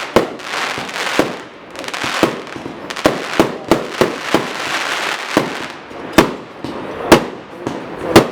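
Fireworks going off: a dozen or so sharp bangs at irregular intervals, with crackling between them that thins out towards the end.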